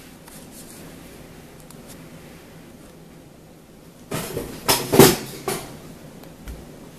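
Quiet room tone, then about four seconds in a quick flurry of knocks and clatter lasting under two seconds, loudest about a second after it starts.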